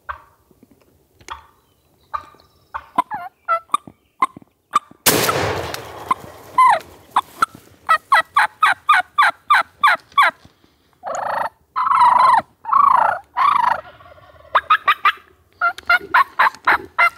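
Merriam's wild turkeys calling, with a single shotgun blast about five seconds in. After the shot the turkeys keep on in quick runs of sharp repeated notes and longer calls.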